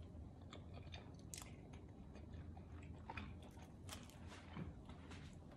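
Faint chewing and biting of pizza, with scattered small crunches and mouth clicks.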